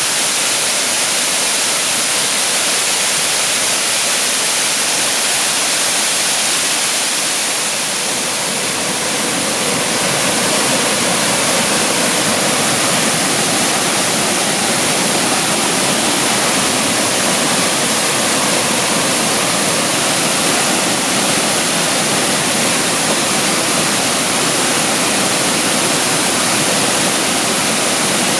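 Waterfall pouring steadily, a constant rushing of water that fills out a little in its lower range after about ten seconds.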